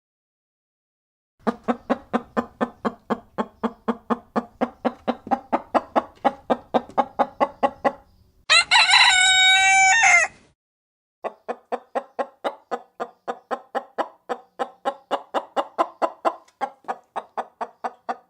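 Chicken clucking in a long, even run of about four or five clucks a second. A sustained crow breaks in about eight and a half seconds in and lasts about two seconds, then the clucking resumes.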